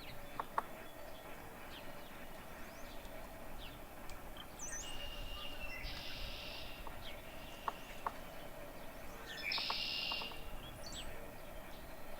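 Wild birds calling: scattered short chirps, with two harsh, raspy calls about five and nine and a half seconds in.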